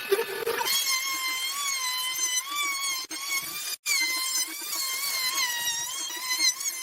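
A power tool's motor whining at a high, steady pitch that wavers slightly, as under a changing load, cutting out for an instant about halfway through.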